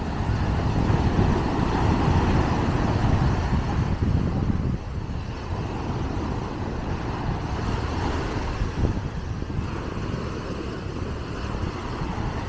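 Sea surf breaking and washing up a sandy beach: a loud, steady rushing noise, heaviest in the low end, easing a little about five seconds in.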